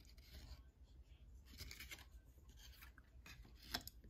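Faint rustling of Upper Deck trading cards being slid and flipped by hand, a few soft brushes spread over the seconds with a short sharper scrape near the end.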